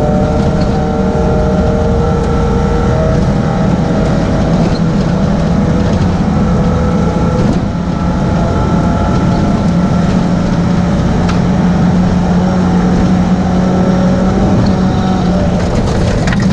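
Untuned rally car's engine running hard under load on a gravel road, heard from inside the cabin, with steady tyre and gravel noise. The engine note dips briefly about eight seconds in, then carries on steadily.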